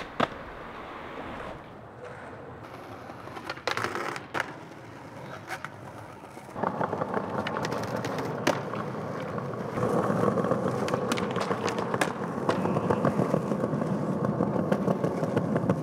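Skateboard on concrete: a few sharp pops and clacks of the board, then from about six and a half seconds a long, loud run of wheels rolling over rough concrete, louder from about ten seconds in, with occasional sharp clacks over it.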